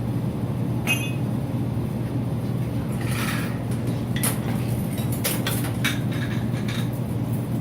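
Scattered metal clinks and knocks from rigging and moving a heavy machine tool, mostly in the second half, over a steady low hum.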